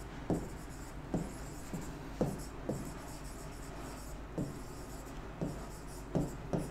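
Marker pen writing on a whiteboard: a string of short, irregular scratching strokes as letters are drawn.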